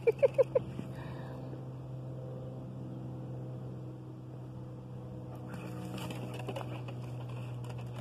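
A dog yapping four times in quick succession, sharp and high, as two dogs squabble, then a steady low hum underneath.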